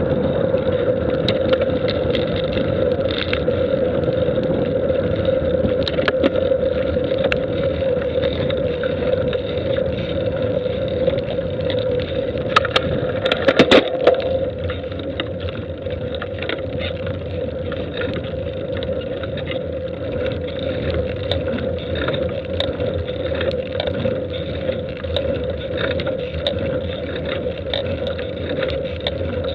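Steady hum and rumble of a moving vehicle, with one constant tone held throughout. A short cluster of loud knocks comes about thirteen seconds in, and the hum is slightly quieter afterwards.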